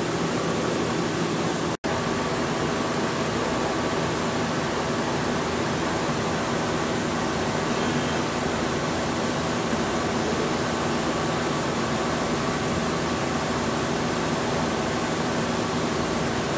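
Steady hum and hiss of running machinery, the CNC tool grinder and its coolant filtration unit, with several steady hum tones under it. The sound cuts out for an instant about two seconds in.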